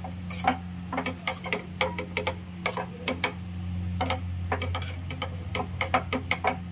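Metal spoon stirring poha in a stainless-steel pan, clicking and scraping against the pan in quick irregular taps, over a steady low hum.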